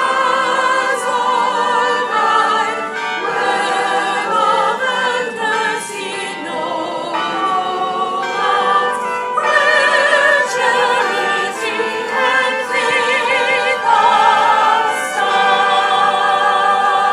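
Choir singing a sacred piece, several voice parts together with vibrato.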